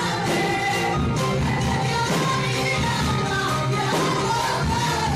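Worship song at an evangelical church service: singing over instruments and percussion.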